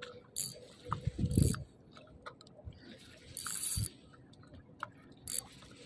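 Spinning reel being wound in several short spells while a hooked fish is played on a bent rod, with a few dull knocks of the rod and reel being handled.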